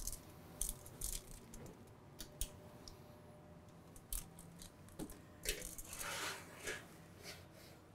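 Light metallic clicks and rattles of a metal sheet pan being set onto a wall-oven rack, with a longer rattling slide of the pan on the rack about five and a half seconds in.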